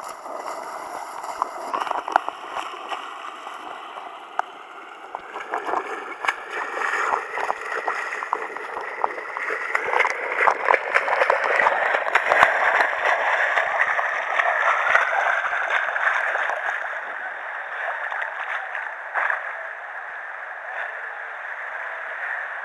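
Whitewater river rushing and splashing right at a helmet camera riding on the water's surface, with many small splashes and droplet ticks from a swimmer's arm sweeping through the water. The rush grows louder through the middle and eases toward the end.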